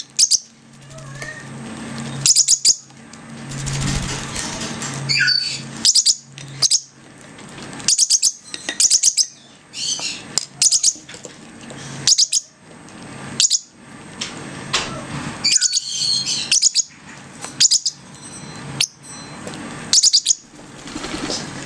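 Weaning peach-faced lovebird chicks and a parrotlet chirping: short, high chirps, often in quick pairs or threes, repeated about every second.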